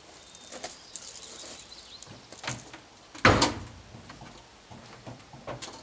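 A few scuffing footsteps on gravel, then a loud clunk about three seconds in as someone steps up onto a wooden stool and the pickup's rear bumper.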